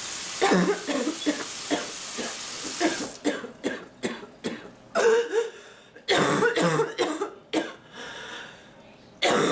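A person coughing in repeated fits: a string of short coughs, then louder harsh bursts of coughing with throat clearing. A steady hiss runs under the first three seconds.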